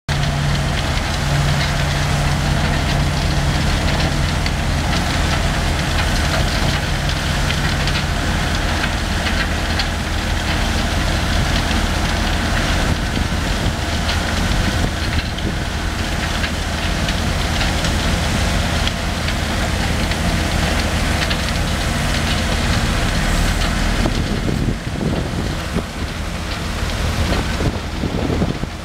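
Diesel engines of two Komatsu wheel loaders, a WA470 and a WA480, running steadily while the loaders raise their lift arms and buckets to full dump height.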